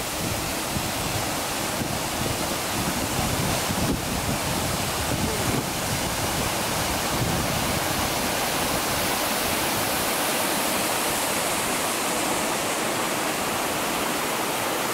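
A waterfall and the rocky creek below it rushing: a steady, even noise of falling and tumbling water.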